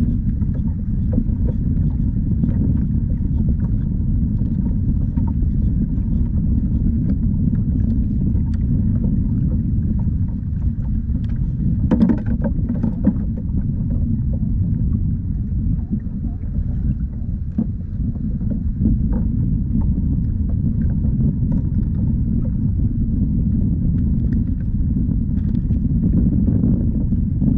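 Steady low rumble of wind on the microphone and water against a kayak's hull, with a few short knocks about twelve and thirteen seconds in.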